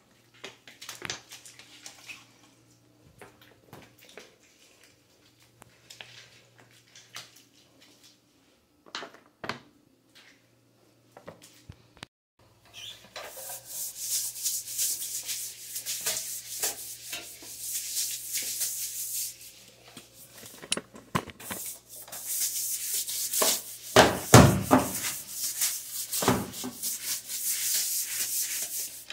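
A long-handled stiff-bristled scrub brush scrubbing a wet, detergent-soaped tiled floor: a steady back-and-forth scratching that starts about twelve seconds in, after scattered small taps and clicks. Two heavier knocks come near the end.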